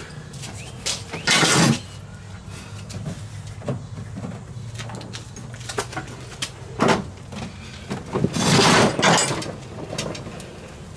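Mower deck of a John Deere LA145 lawn tractor scraping and dragging across concrete as it is slid out from under the tractor, with clunks. It comes in several bursts, one loud one about a second and a half in and a longer one near the end.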